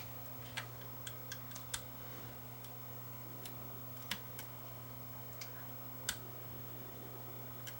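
Light, irregular clicks and ticks of small tools adjusting a Sony Hi8 camcorder's tape mechanism during playback alignment, about a dozen spread across the stretch, over a steady low hum.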